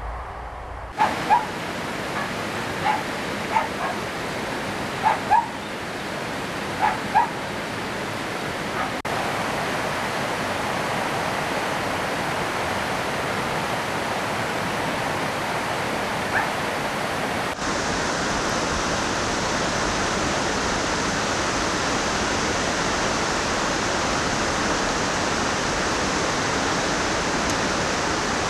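Steady rush of running water, with a dog barking about eight times, mostly in quick pairs, during the first seven seconds. Past the middle the rushing turns brighter and a little louder.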